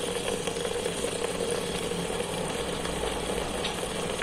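A steady background hum with a constant tone running under it, and one faint tick near the end.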